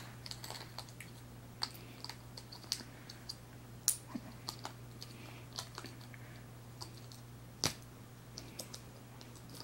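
Scattered small plastic clicks and taps from hands fitting the battery into a clip-on vlogging microphone, with a louder knock about four seconds in and another near eight seconds. A steady low hum runs underneath.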